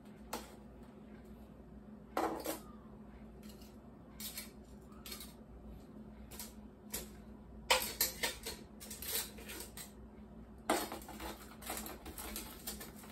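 Metal tongs and a kitchen knife clinking against a stainless steel bowl and tapping on a cutting board, in scattered clicks and clatters that grow busier in the second half. Near the end, a knife cuts through crisp deep-fried pork skin (lechon kawali) on the board.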